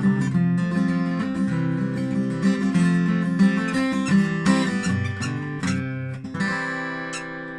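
Acoustic guitar strumming the closing chords of a song, ending on a final strummed chord about six seconds in that rings and fades away.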